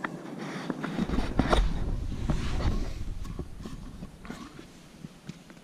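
Rumbling handling noise and rustling on the camera's microphone as it is moved about. Then a few light clicks and taps as a Jetboil stove's cup is handled on the ground, quieter toward the end.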